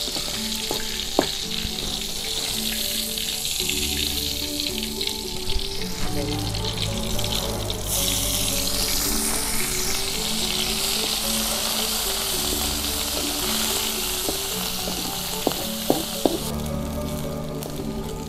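Hot oil sizzling in a metal wok as small dried anchovies fry, the hiss getting stronger about eight seconds in and easing again near the end. A few sharp clinks of a metal spatula against the wok, once near the start and a few times towards the end.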